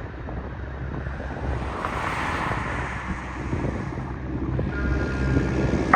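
Airliner cabin noise aboard a Boeing 747-400: a steady rushing of air over a low rumble, swelling slightly about two seconds in.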